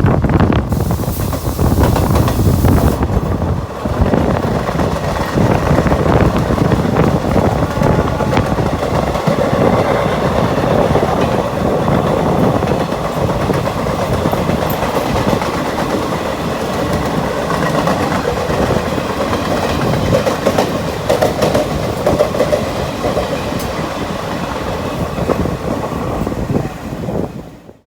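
Electric-hauled express train passing close by: a steady rumble and clatter of wheels on the rails. The sound falls away quickly near the end.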